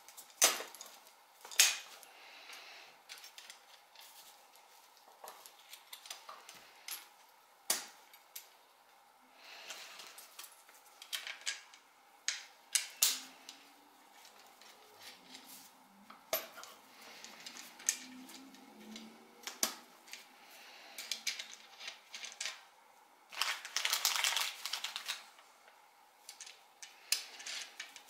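Small metal clicks and taps of nuts and washers being fitted onto steel rods and turned by hand against the acrylic frame plate of a DIY Prusa i3 3D printer kit, with brief rustles of the foam sheet beneath. The longest rustle comes about three quarters of the way through.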